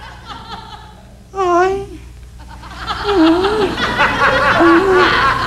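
A woman's short, muffled vocal sounds with a hand clamped over her mouth, then studio audience laughter building from about three seconds in.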